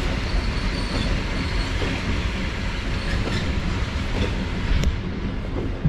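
Sangi Railway ED45 electric locomotive rolling at shunting speed: a steady rumble of wheels on rail with a few clacks over the rail joints in the second half and a faint thin squeal in the first second or two.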